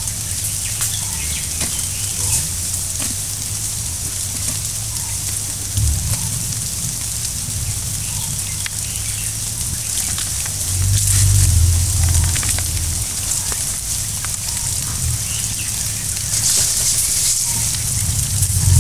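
Forest ambience: a steady high-pitched hiss with a few faint short bird-like notes. Low rumbling swells louder about eleven seconds in and again near the end.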